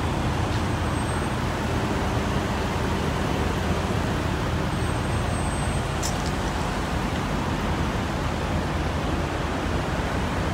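Steady low rumble of idling semi-truck diesel engines, with one brief click about six seconds in.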